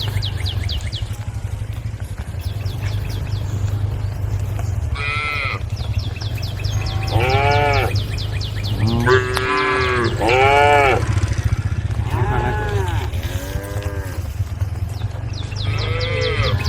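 Cattle mooing to each other, calling the herd, in a series of about seven calls from about five seconds in, each rising and falling in pitch. A steady low rumble runs underneath, with a fast, high-pitched pulsing buzz at the start and again in the middle.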